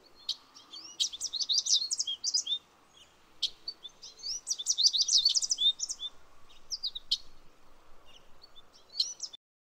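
Songbirds singing: quick runs of high chirps and twitters in two long outbursts with scattered single calls between, cutting off suddenly near the end.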